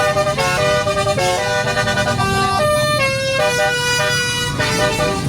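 Basuri-type telolet bus horn playing a tune: a quick run of held horn notes that jump from pitch to pitch every fraction of a second.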